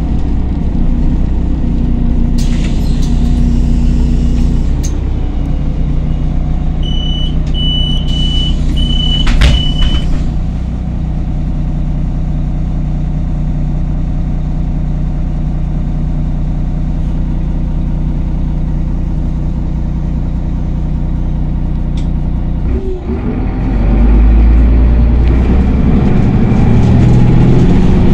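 Solaris Urbino 18 III articulated bus engine running steadily, heard from inside the passenger cabin. Air hisses twice in the first third, four short high beeps sound and a sharp knock comes about ten seconds in. Near the end the engine grows louder as the bus pulls away.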